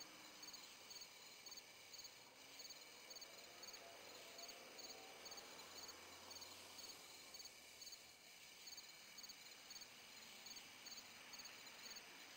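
Faint cricket chirping in a steady rhythm, about two chirps a second.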